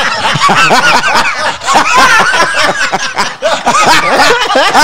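Men laughing together, several voices overlapping in repeated short bursts of laughter after a joke.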